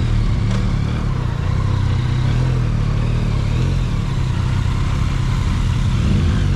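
Motorcycle engine running at a steady speed on the road, with wind rushing over a helmet-mounted camera.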